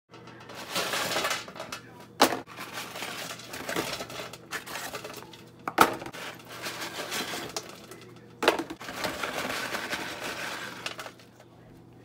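Waffle fries being tipped out of a paper fry carton onto a metal baking sheet: rustling of the paper and fries sliding and scraping on the pan, broken by three sharp knocks.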